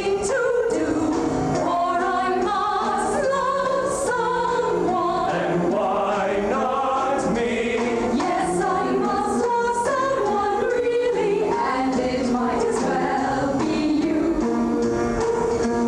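A stage cast singing a musical-theatre number together, several voices in chorus, over musical accompaniment.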